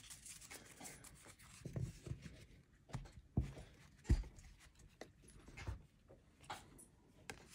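Trading cards being handled: cards sliding and rubbing against each other as they are pulled from a stack, with scattered light taps and a soft thump about four seconds in.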